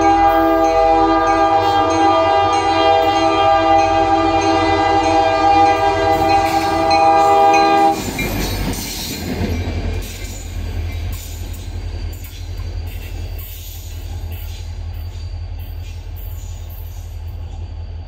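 Transap D-3005, an ex-Canadian Pacific 5607 EMD SD40 diesel locomotive, sounding its multi-chime air horn in one long steady blast that cuts off about eight seconds in. The low rumble of the locomotive passing follows, growing quieter as it draws away.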